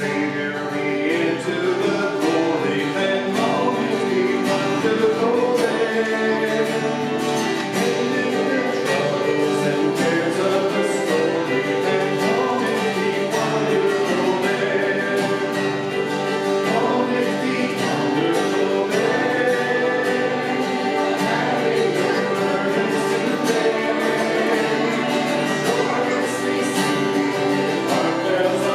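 A worship song: a group of voices singing together with guitar accompaniment.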